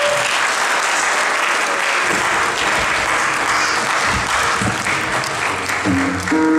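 Audience applauding, a steady dense clapping throughout.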